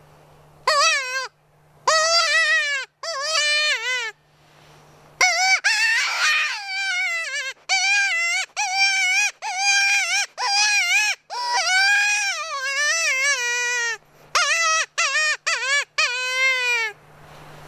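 Hand-blown predator mouth call (DWO Signature Series) blown as a run of short, wavering, pitched cries that break off and restart about every half second to a second, with a short pause about four seconds in.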